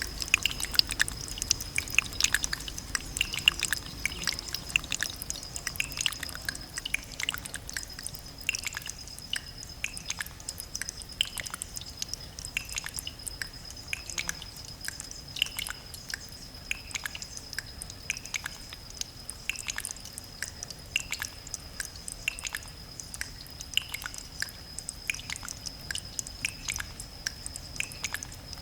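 Water dripping: many small, irregular drips, several a second, with a thin, steady high tone held throughout.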